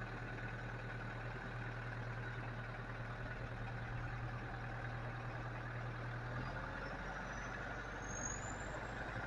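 Case IH tractor engine idling steadily with an even low hum.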